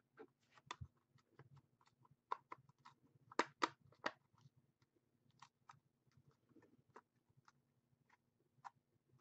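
Faint, irregular clicks and taps of hands handling things at a desk. A cluster of sharper clicks comes about three to four seconds in.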